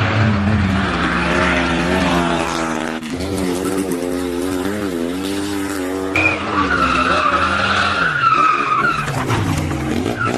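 Small rally car engines revving hard, a Fiat 126 among them, their pitch rising and falling through the gears, with sudden changes where different cars cut in. From about six seconds in, a high wavering tyre squeal runs over the engine for about three seconds.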